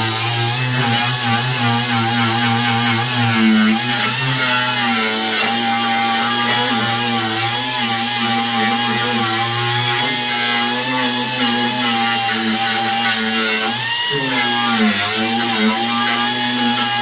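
Electric angle grinder running continuously against sheet-metal car body, its motor whine wavering in pitch as it bears on the work and dipping briefly near the end.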